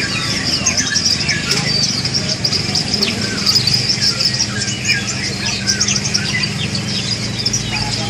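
Many caged songbirds chirping and twittering at once: a dense chorus of short, high chirps and whistles overlapping throughout. A low steady hum runs underneath.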